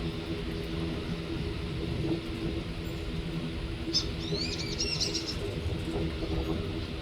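A small bird sings a quick run of high, rising chirps about four seconds in. Under it runs a steady low rumble with a hum.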